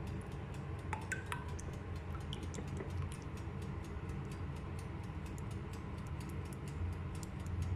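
Silicone basting brush stirring a thick tomato-based sauce in a ceramic bowl: a quick, irregular run of light clicks as it taps and scrapes the bowl, over a low steady hum.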